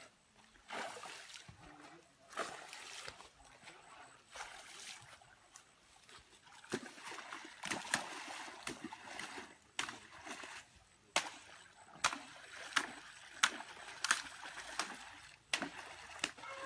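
Pond water splashing as two swimmers stroke and kick through it, towing a float-lined fishing net; the splashes are irregular and sharp, sparse at first and coming quicker and louder through the second half.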